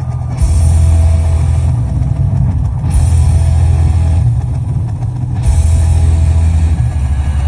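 Live hard rock band playing loud, with heavy drums and bass; bright cymbal-and-guitar sections drop out and come back every second or two.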